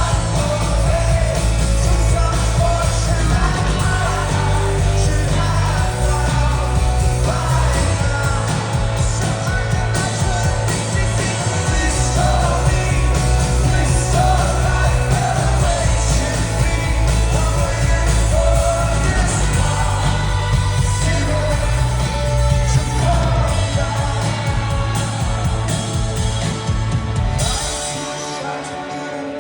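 Live rock band playing with a lead vocalist singing over a heavy bass and drums. Near the end the bass drops out, leaving a quieter, thinner passage.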